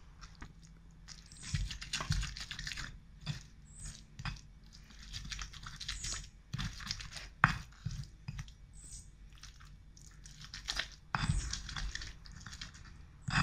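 Pestle grinding fresh red chilies and tomato into sambal in a stone mortar (cobek): irregular wet crushing and scraping strokes, with a few sharper knocks, the sharpest about seven seconds in.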